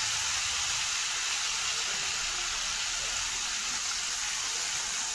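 Shrimp frying in a pan of hot oil, a steady sizzle.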